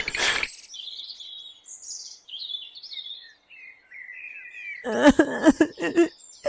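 Birds chirping in a series of short, high, quick calls. About five seconds in, a brief, louder burst of a pitched, voice-like sound cuts across them.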